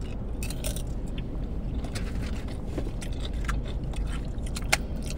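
Close-up eating sounds: mouthfuls of wet burrito and a crunchy chip being bitten and chewed, with wet smacks and scattered mouth clicks. A steady low hum runs underneath.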